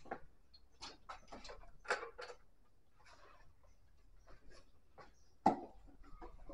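A cloth rag being pulled out and rubbed over a motorcycle's fuel tank: scattered soft rustles and light clicks, with one sharper knock about five and a half seconds in.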